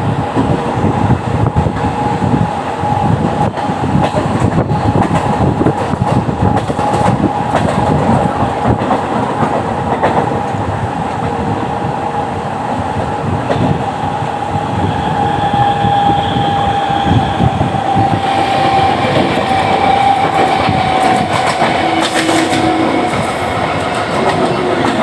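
Train running on the rails, with a steady clickety-clack of the wheels and a steady whine throughout.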